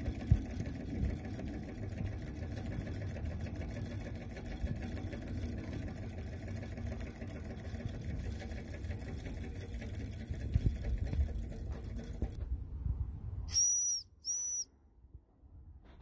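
Jensen #75 toy steam engine running, with a steady high hiss of steam and a low chugging; the steam cuts off about twelve seconds in. Near the end the boiler's steam whistle gives two short, high-pitched blasts, about half a second apart.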